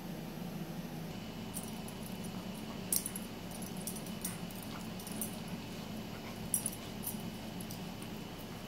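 German Shepherd and ginger kitten play-fighting: scattered light clicks and jingles, two of them louder about three and six and a half seconds in. Underneath runs a steady low hum, with a faint steady high tone from about a second in.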